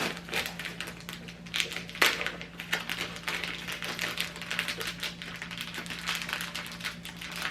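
Plastic packaging crinkling and rustling as it is handled and pulled open, a dense run of irregular clicks and crackles, over a steady low hum.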